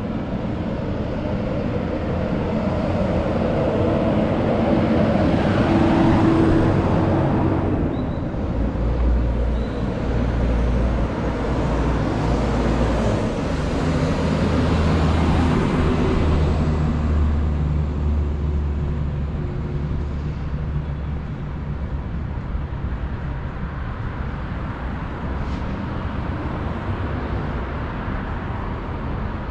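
Road traffic on a city avenue: vehicles pass one after another with a low rumble, the loudest swells in the first half, including a minibus engine going by about halfway through, then a steadier, quieter traffic hum.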